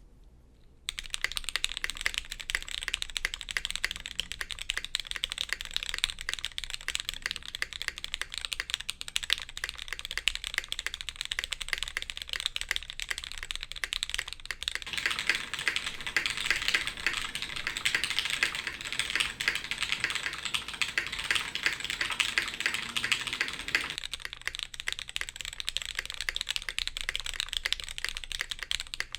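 Custom mechanical keyboard being typed on continuously: vintage black linear switches lubed with 205g0, on an aluminium plate in a friction-fastened case, under DCS Rootbeer keycaps. Typing starts about a second in and grows denser and fuller from about halfway to near the end.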